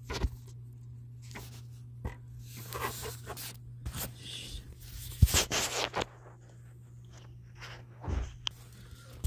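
Handling noise from a phone camera being picked up and moved: rubbing, rustling and scrapes with a few knocks, the loudest about five seconds in. A steady low hum runs underneath.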